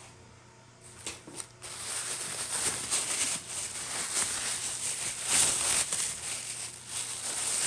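Plastic packing bags rustling and crinkling as pieces of chert are unwrapped and handled, after a couple of light knocks about a second in.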